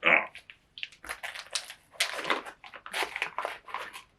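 Plastic wrapping on imitation crab sticks being torn and handled, an irregular run of crinkling and crackling, with a short voice-like sound at the very start.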